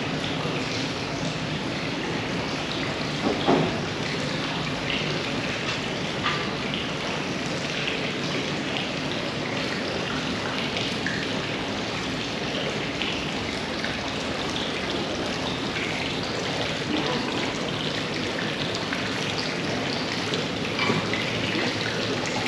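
Running water splashing steadily, with one short knock about three and a half seconds in.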